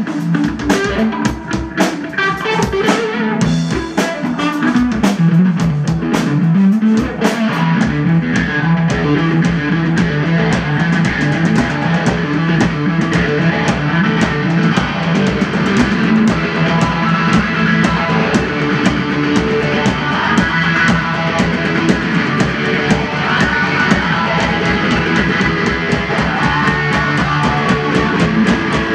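Live rock duo: electric guitar and drum kit playing loudly together, with sharp stop-start drum hits in the first few seconds and a guitar note sliding down and back up about five seconds in.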